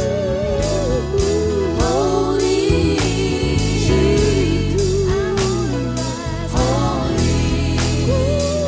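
Gospel song with a lead vocal and a steady beat.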